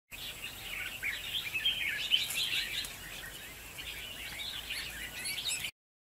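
Red-whiskered bulbuls singing and calling, a busy run of quick, overlapping chirpy phrases that cuts off suddenly near the end.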